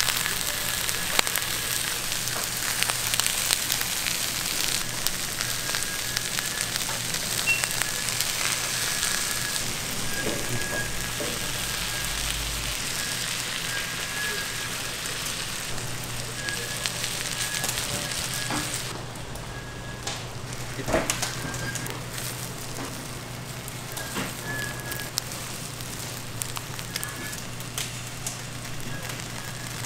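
Chicken sizzling and crackling as it cooks, a steady hiss broken by sharp pops. The hiss thins about 19 seconds in. A faint high squeak comes and goes throughout.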